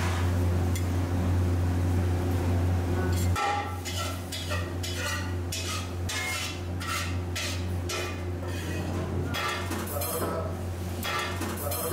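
Metal spatula scraping and knocking on a flat griddle as a dosa is rolled and lifted, in a string of short strokes about two a second. A steady low hum runs beneath, louder for the first few seconds.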